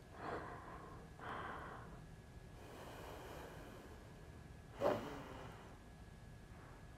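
A woman's breathing while holding a plank: two slow breaths in the first two seconds, then one short, sharper breath about five seconds in, the loudest sound.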